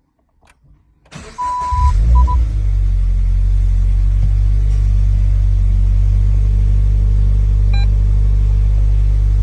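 Subaru BRZ's flat-four engine starting about a second in, with a beep and then two short beeps, then idling steadily with a low, even hum. The idle noise is put forward as an abnormal clutch noise.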